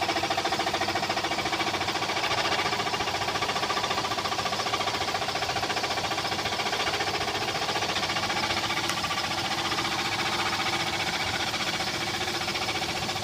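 Toyota Tacoma pickup engine running steadily, heard up close, with a fast, even, rapid knocking: the engine knock the owner is documenting.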